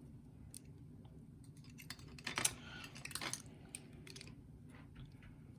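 Small metallic clicks and scrapes of a Corbin lock cylinder and a shim or pick being handled while the lock is taken apart, with a quick cluster of louder scraping clicks between about two and three and a half seconds in.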